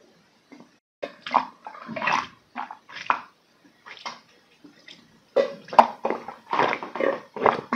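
A person gulping down a drink in one long chug from a large glass: a string of loud, wet swallows with short gaps, starting about a second in and coming thick and fast from about five seconds in.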